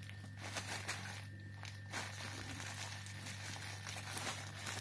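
Plastic bubble wrap crinkling and crackling in irregular bursts as it is handled, over a steady low electrical hum.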